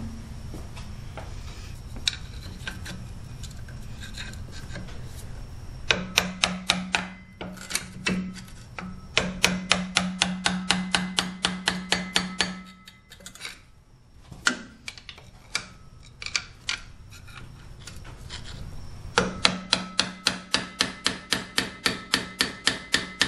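Hammer blows on an orange-handled screwdriver set against a golf cart's driven clutch, trying to knock the stuck clutch loose. The blows come in three long runs of about four to five a second, each hit ringing metallically.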